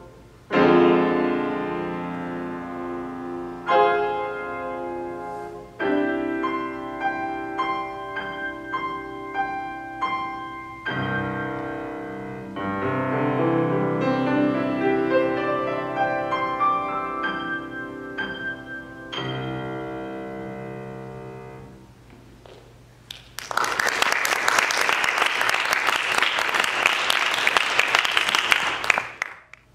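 Grand piano played solo, chords and melody notes struck and held, until a final chord dies away about 22 seconds in. Then audience applause runs for about six seconds and stops just before the end.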